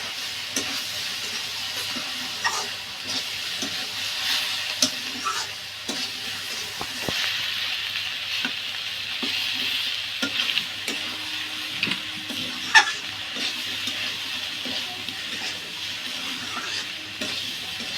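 Paddy-straw mushrooms and ivy gourd sizzling steadily in oil in a kadai while a spatula stirs them, with scattered clicks of the spatula on the pan and one sharper knock about two-thirds of the way through.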